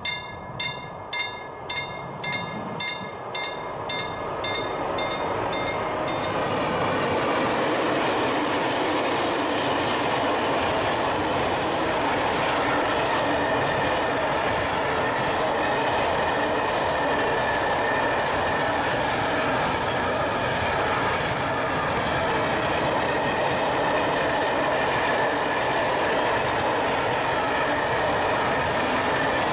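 Level crossing warning bell ringing about twice a second, drowned out about six seconds in as a long freight train arrives. The train, hauled by an Sr1 electric locomotive, then rolls steadily through the crossing with its covered paper wagons rumbling and clattering over the rail joints.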